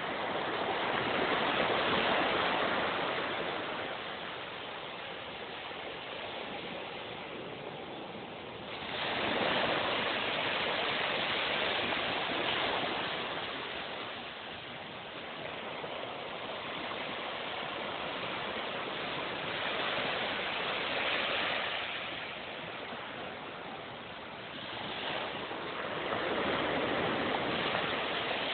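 Small waves washing onto a sandy beach: a steady hiss of surf that swells and falls back every several seconds.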